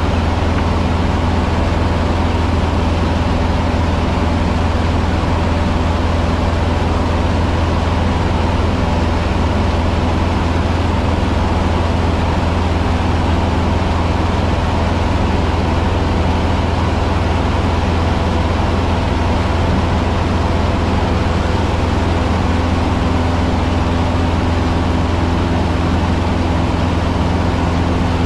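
Cessna 150's four-cylinder Continental O-200 engine and propeller running steadily, heard inside the cockpit as a loud, unchanging drone with a deep hum and several steady tones above it.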